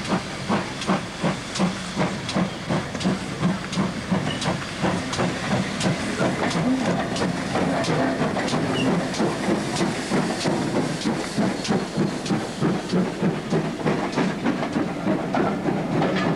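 GWR Hall class 4-6-0 steam locomotive No. 4920 pulling away from a station with its train: a steady hiss of steam under regular chuffing exhaust beats, about three a second and quickening a little as it gathers speed.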